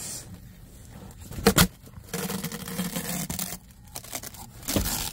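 Packing tape on a cardboard box being cut with a knife and torn open, with two sharp knocks about a second and a half in and another just before the end.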